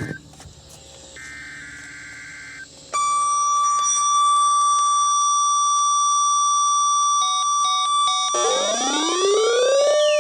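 Weather radio emergency alert broadcast: a short burst of the coded data header warbling between two high tones, then the 1050 Hz warning alarm tone comes in loud and steady about three seconds in. Near the end the weather radios' own alarms join it, with quick on-off beeping and then a siren-like sound rising over and over.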